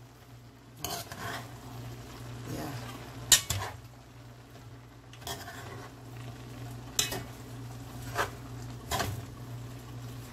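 A slotted spatula stirring chopped pak choi and vegetables in a stainless-steel pot, with irregular scrapes and knocks against the pot every second or so over a steady low hum.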